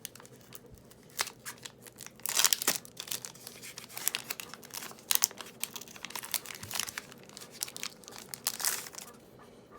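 Foil wrapper of a Pokémon card booster pack crinkling and tearing as a hard-to-open pack is worked open, with louder rips about two and a half seconds in and near the end.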